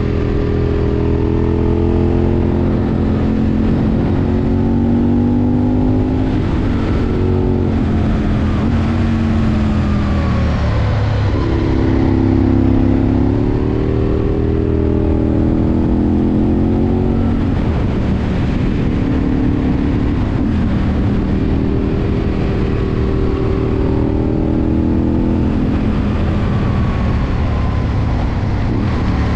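Aprilia Tuono V2's V-twin engine heard from on board while riding, its pitch climbing under acceleration and dropping back again and again through the bends.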